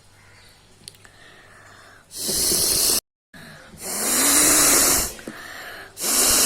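A person blowing their nose hard, three long hissing blasts of air of about a second each. The first is cut off abruptly about three seconds in, and the last runs on past the end.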